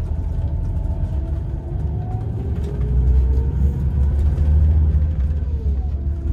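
Motor vehicle on the move: a steady low rumble of engine and road, with faint engine tones slowly rising in pitch. It cuts off abruptly near the end.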